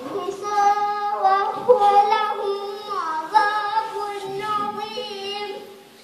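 A young girl's solo voice singing a slow melodic line in long, ornamented held notes. About three seconds in it slides down, and it breaks off just before the end.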